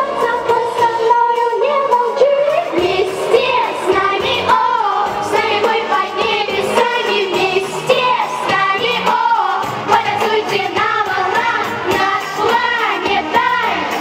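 Young girls singing a song into handheld microphones over a music backing track.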